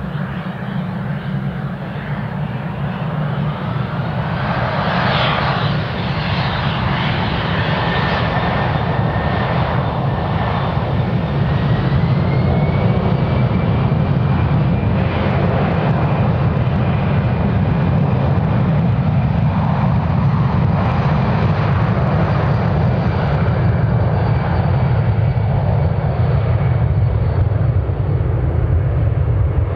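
Boeing C-17A Globemaster III's four Pratt & Whitney F117-PW-100 turbofans spooling up to takeoff power. A whine rises in pitch and the sound grows louder over the first dozen seconds, then holds steady and loud at full power as the aircraft begins its takeoff roll.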